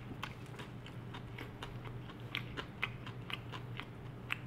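A person chewing a mouthful of stir-fried fish and noodles close to the microphone: soft, irregular mouth clicks, a few a second, over a faint steady hum.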